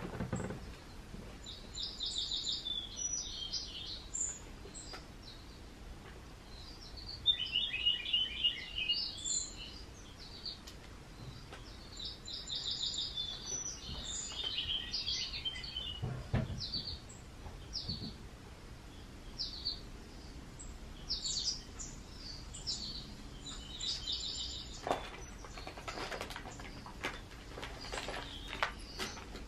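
Small birds chirping in short, high, repeated trills. Near the end, brown packing paper crackles several times as a cat shifts in it.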